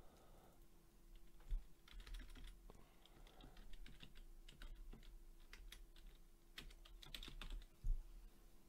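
Computer keyboard typing: faint, irregular key clicks as a short phrase is typed, over a faint steady hum.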